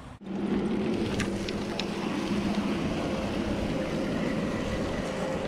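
Mountain bike being ridden: a steady drone with a hum in it and wind on the microphone, with a few light rattling clicks.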